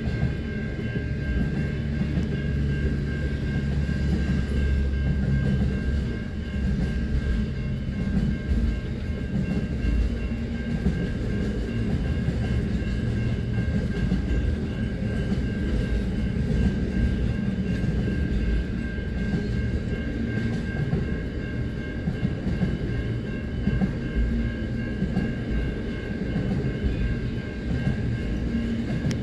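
Intermodal freight train's container wagons rolling past over the crossing, a steady low rumble of wheels on rail, heard from inside a car. A steady high ringing sits above it throughout, typical of the level crossing's warning bell.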